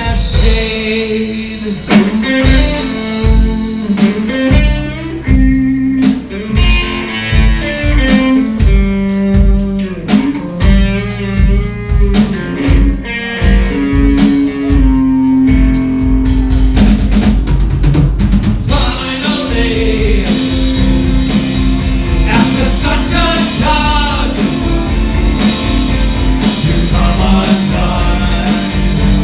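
Live band playing a song on violin, cello, acoustic guitar, electric bass and drum kit, with a steady drum beat. About two-thirds through, the band comes in fuller and more evenly loud.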